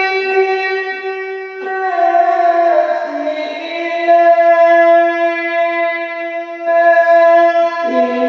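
A male qari chanting Quran recitation through a microphone in the long-drawn melodic style: one voice holding long ornamented notes, stepping down in pitch about three seconds in and again near the end.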